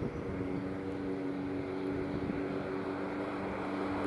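Engine of an approaching road vehicle, a steady hum with a few overtones, growing slightly louder.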